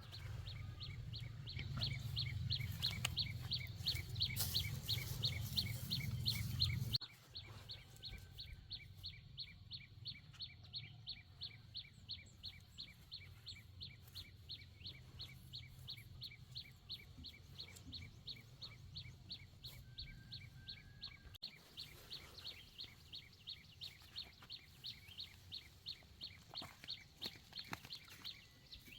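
A steady, evenly spaced train of short high chirps, about two to three a second, from a calling bird or insect. A low rumble sits under the first seven seconds and stops abruptly.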